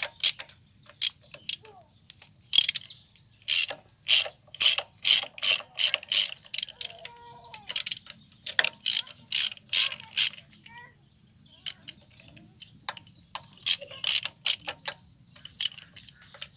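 A 12 mm ratchet wrench clicking in quick back-and-forth strokes, about two to three a second in runs with a pause near the middle, as bolts on the engine's front cover are loosened.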